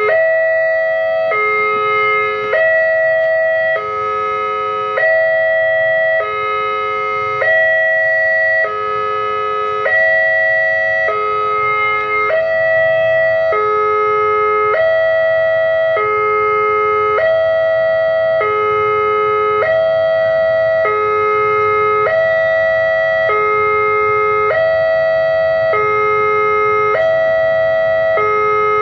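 Railway level crossing warning alarm sounding steadily, alternating between a higher and a lower electronic tone about every second and a quarter, the signal that a train is approaching.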